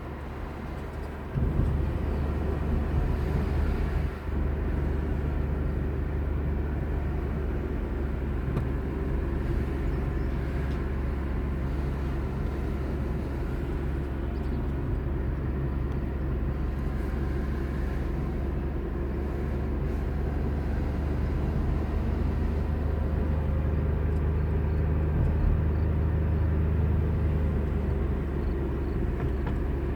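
Steady low rumble of a moving vehicle, a deep drone under an even hiss, which steps up about a second and a half in and then holds steady.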